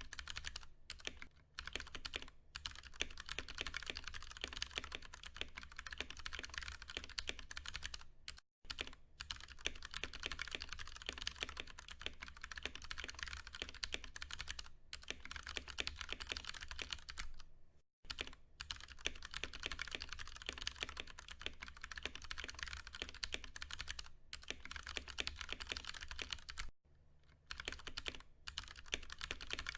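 Fast, continuous typing on a Ducky One 2 Mini mechanical keyboard with Cherry MX Brown switches: a dense run of key clacks, broken by short pauses about a third of the way in, again about two-thirds in, and once near the end.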